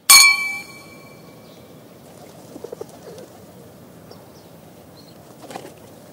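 Two glass champagne flutes clinking together in a toast: one bright glass ring at the start that dies away over about a second and a half. A quiet steady background follows.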